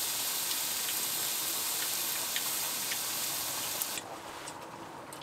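Beef slices sizzling on a hot griddle pan, a steady hiss with a few small pops. It cuts off abruptly about four seconds in, leaving a quieter background with a few light clicks.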